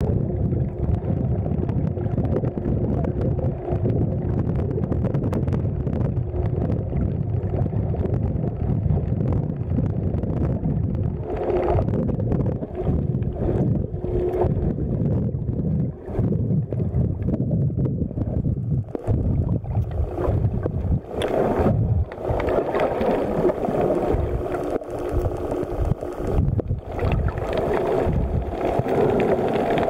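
Muffled underwater wash and rumble on the camera, with a steady low hum of boat engines carried through the water and a few sharp clicks in the second half.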